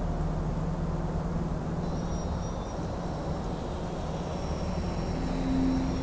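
Steady low rumbling background ambience with a hum under it. Faint thin high tones come in about two seconds in, and a steady low tone starts near the end.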